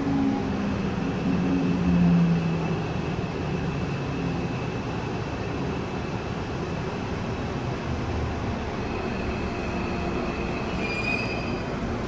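Busan Metro 1000-series subway car running in a tunnel, heard from inside the car: a steady rumble of wheels on rail. The Toshiba permanent-magnet traction motor's low tone falls in pitch over the first few seconds, and a thin high squeal runs throughout, growing louder near the end.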